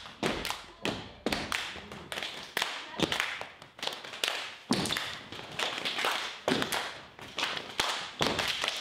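Step dancers stomping their feet and clapping in a routine: a quick, uneven string of sharp stomps and claps.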